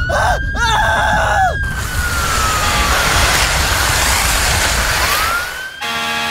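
Fire-engine siren wailing, one slow rise and fall and a second rise near the end, over a steady loud hiss that stops shortly before the end. Short squeaky cartoon voices sound in the first second and a half.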